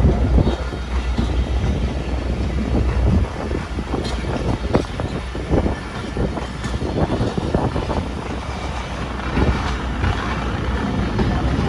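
A moving vehicle's rumble and rattle: a heavy low rumble for about the first three seconds, then irregular clattering and knocking.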